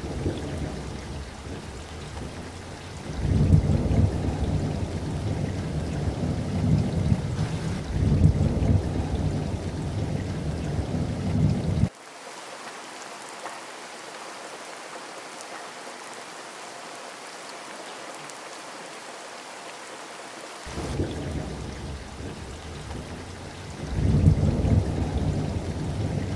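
Heavy rain pouring down on a stone rooftop, a steady hiss with deep rumbling that comes and goes. For several seconds in the middle the rumble cuts out abruptly, leaving only the hiss of the rain.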